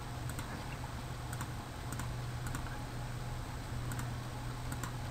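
Computer mouse button clicking about once a second, each click a quick press-and-release pair, as line end points are placed in a CAD drawing. A steady low hum runs underneath.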